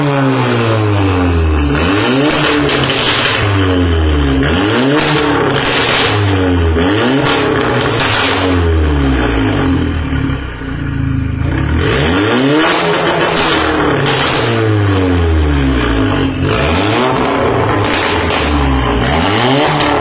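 Audi S3 8V's turbocharged 2.0-litre four-cylinder, APR Stage 2 tuned, revved again and again through an ARMYTRIX aftermarket exhaust. The pitch climbs and falls every couple of seconds and eases off briefly about halfway, with short sharp cracks among the revs.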